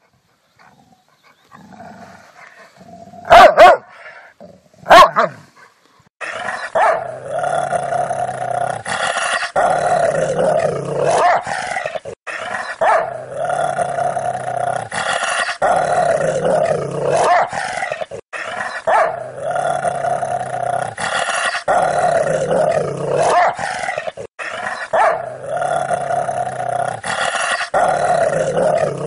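Rottweiler barking about three times, sharp and loud, then growling steadily in long phrases of a few seconds each, broken only by short pauses.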